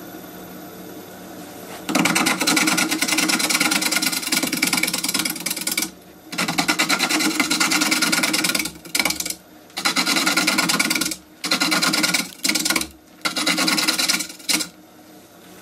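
A wood lathe turning a honey locust bowl blank, with a hand-held gouge cutting into the spinning wood. After about two seconds of the lathe running on its own come repeated cutting passes, the first about four seconds long and the rest shorter with brief pauses between. Each pass is a loud scraping rasp with a fast ticking running through it.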